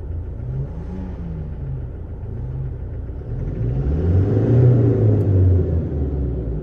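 Toyota Hilux diesel engine running rough with a cylinder 1 misfire, its note wavering unevenly. About three and a half seconds in, the engine speed rises and grows louder, then drops back near the end. It still sounds harsh to the mechanic, a sign that the injector problem is not cured.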